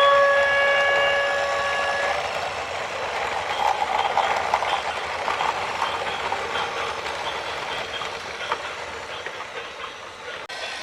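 A loud horn blast lasting about two seconds, followed by the rattling, clattering run of a train rolling past, which slowly fades.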